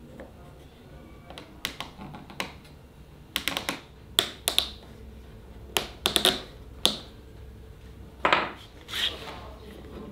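Metal hand tools and parts being handled and set down on a workbench: irregular sharp clicks and taps, some in quick clusters of three or four, a few ringing briefly.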